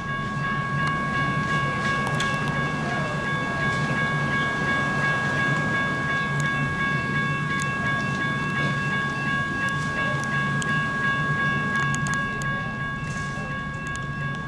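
Railroad crossing signal bell ringing steadily with the gates down and lights flashing, its ring held as a constant bright tone, over a low steady hum.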